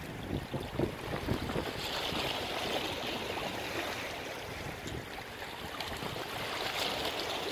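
Small sea waves washing against the shore, the hiss of the wash swelling about two seconds in and again near the end. Gusts of wind rumble on the microphone in the first couple of seconds.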